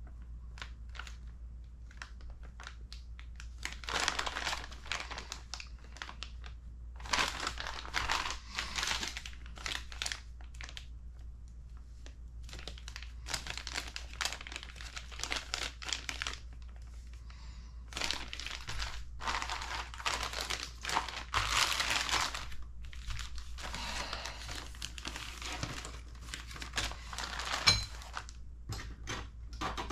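Clear plastic parts bags crinkling as they are handled and shuffled, in stretches of a few seconds with short pauses between, with light clicks and a sharper click near the end.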